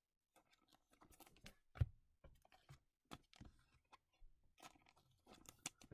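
Faint, scattered clicks and taps of trading cards being handled and set down on a mat, one sharper tap about two seconds in, over near silence.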